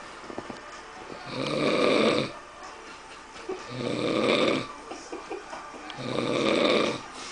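A sleeping person snoring: three loud snores, each about a second long, coming about every two and a half seconds with quieter breathing between.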